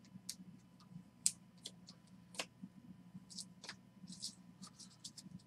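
Trading cards being handled and set down into stacks on a table: faint, scattered clicks and light rustles of card stock, with one sharper tap a little over a second in, over a faint steady low hum.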